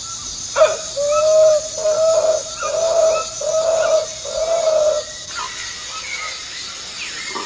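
A hunter imitating howler monkeys with his voice, hands at his mouth: a run of about six low hoots, each about half a second long. It is a lure call to bring howler monkeys closer within blowgun range.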